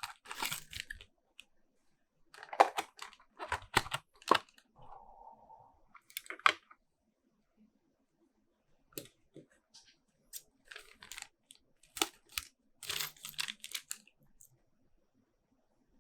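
Packaging being opened and handled by hand: irregular bursts of tearing and crinkling with small clicks, and quiet gaps between them.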